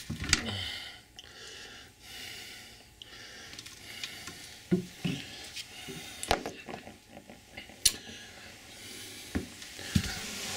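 Handling noise from hand work on the toilet's plumbing: scattered light clicks and taps with some rubbing and faint hiss between them.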